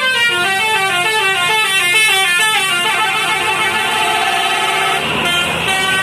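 A bus's Basuri telolet multi-tone horn playing a quick tune of stepped notes for about three seconds, then holding a steady chord, with the notes changing again near the end.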